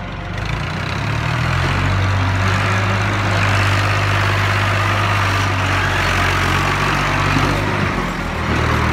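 New Holland Al-Ghazi tractor's diesel engine working hard under load, pulling a trolley full of sand up a steep slope. The engine note builds over the first couple of seconds, holds steady, and eases briefly near the end before picking up again.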